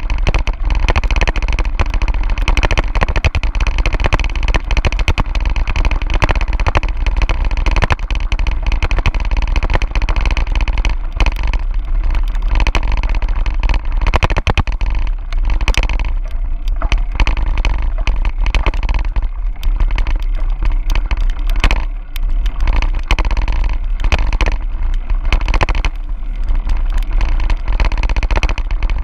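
Wind rushing over the microphone of a camera carried on a mountain bike, a steady low rumble, with tyres crunching over a gravel road and the bike rattling in frequent short clicks.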